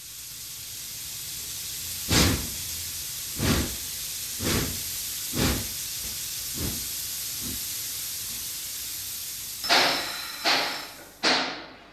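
Steam locomotive hissing steam steadily, with about six exhaust puffs roughly a second apart that fade away. Near the end come a few sharp metallic clanks.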